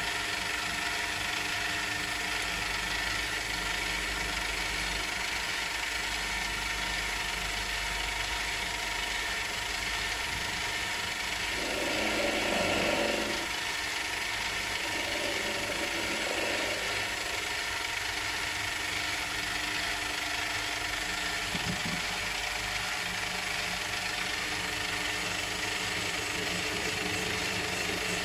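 Small metal lathe running steadily, its motor and gear train giving a constant whine with several fixed tones. About twelve and fifteen seconds in come two short, louder, rougher stretches lasting a second or two each.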